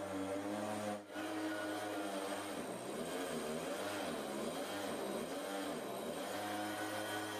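Motorized powder sprayer running with a steady droning hum as it blows Stalosan hygiene powder over the poultry litter. The sound drops out for a moment about a second in, and through the middle its pitch wavers up and down.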